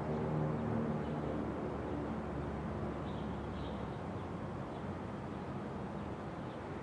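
A steady mechanical hum with several even tones, fading gradually over the first few seconds, over a constant background rush.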